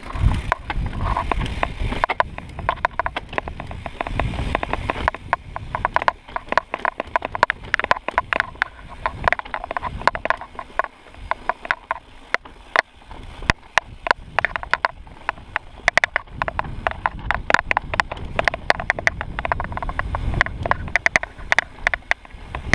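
Mountain bike clattering and rattling over a rough dirt trail on a fast descent, a dense run of rapid clicks and knocks over the hiss of the tyres, with low rumbles coming and going.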